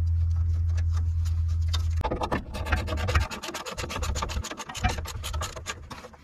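A steady low hum for about the first two seconds, then a ratchet wrench clicking rapidly as it runs a bolt into the new exhaust support bracket, drawing the muffler up into the bracket.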